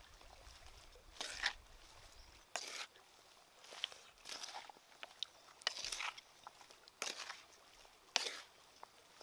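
Hands tossing raw shrimp with crisp cut long beans, red cabbage and greens in a pan, the vegetables rustling and crunching in short bursts about once a second.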